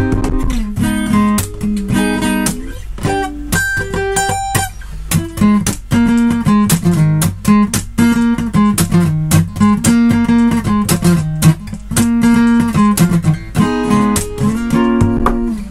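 Solo acoustic guitar: a rhythmic fingerstyle piece of fast strums and percussive strokes mixed with picked chords, easing into a few ringing single notes about three to four seconds in before the driving strumming returns.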